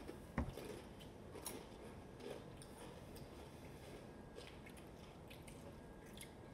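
Faint crunching and chewing of Takis rolled tortilla chips as two people bite into them, with scattered soft crackles. One dull thump about half a second in is the loudest sound.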